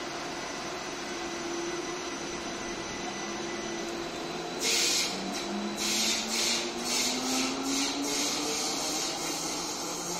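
Light-rail tram pulling away, its electric drive whining upward in pitch as it accelerates, with a series of loud hissing bursts from about four and a half seconds in over a steady mechanical hum.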